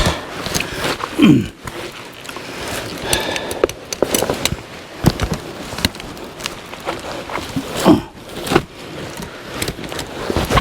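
Irregular wooden knocks, clicks and scraping, with footsteps, as cut walnut logs are handled; no saw is running.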